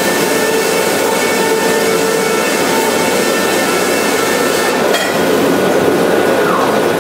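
Sawmill machinery running: a roller conveyor carrying sawn boards through an edging saw line, a steady loud mechanical noise with a whine in it. A knock comes about five seconds in, and one tone drops in pitch near the end.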